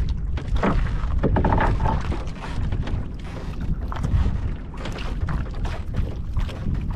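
Wind buffeting the microphone in a steady low rumble, with water lapping against the hull of a small wooden outrigger boat.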